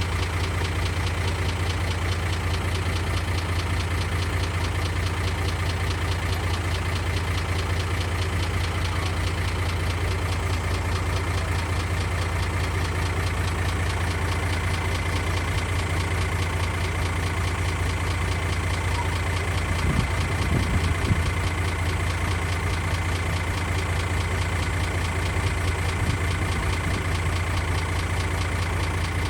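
Komatsu D31A bulldozer's diesel engine running steadily at a low, even idle, with a brief rise in level about twenty seconds in.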